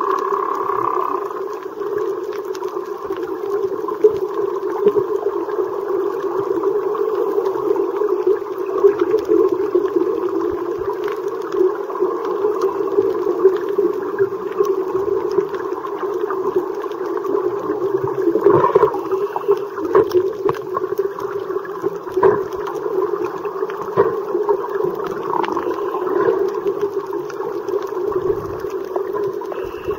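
Muffled underwater sound picked up by a camera in a waterproof housing: a steady low drone with scattered clicks and crackles.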